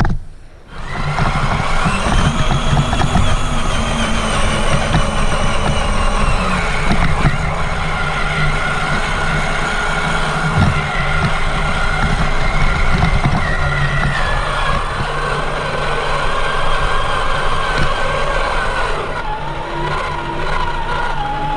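Traxxas Summit RC truck's brushed electric motor and drivetrain whining as it drives. The whine rises about two seconds in, then drops and steps down in pitch a few times as the speed changes, over a rough low rumble.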